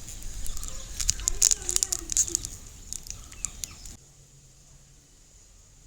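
Crackly clicks and crinkling from hands working slime-making materials, with a brief wavering squeak about a second in; the sound stops abruptly about four seconds in.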